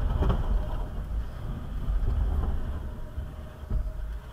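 Low, uneven rumble of a stopped Land Rover Discovery 4 with its engine idling.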